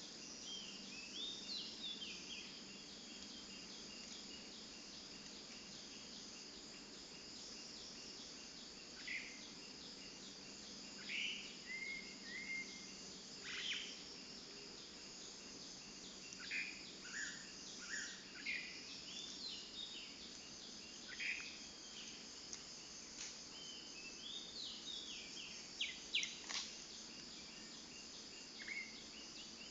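Female murai cacing bird calling in short, scattered chirps and whistles, several falling in pitch, with pauses of a few seconds between bouts. A steady high insect drone runs underneath.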